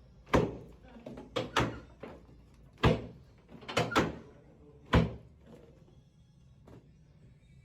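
A series of sharp thuds from a chiropractic adjustment, seven in about five seconds, some in quick pairs, each dying away fast, then a faint knock near the end.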